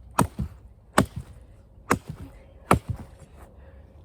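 A blade chopping into a thick piece of wood to finish cutting it through: four sharp strikes, a little under a second apart, each followed by a smaller knock.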